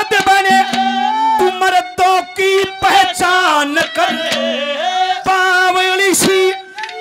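Male singer performing a Haryanvi ragni in a high, bending voice, over a steadily held harmonium drone and frequent hand-drum strokes.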